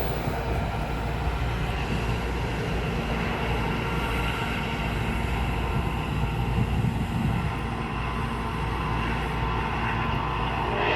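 F40PH-3C diesel locomotive's engine running steadily at an even pitch.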